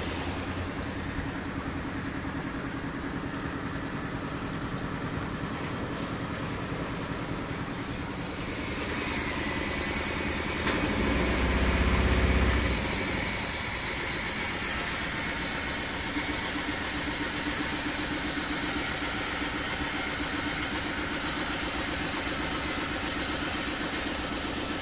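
Yanmar marine diesel running steadily at idle on its first run of the season. About eleven seconds in it gets louder and deeper for a couple of seconds as the throttle lever is worked, then settles back to idle.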